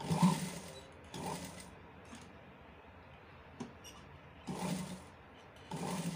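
Sewing machine stitching in four short bursts of about half a second each, stopping and starting between them.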